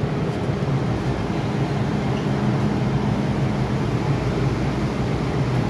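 Steady low hum and rumble of an MTR M-Train and its underground station platform, with no distinct events.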